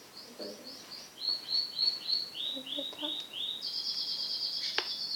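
A songbird singing: a run of high, short chirps, about three a second, stepping lower in pitch, then a fast high trill from a little past the middle. A faint voice murmurs briefly, and there is one sharp click near the end.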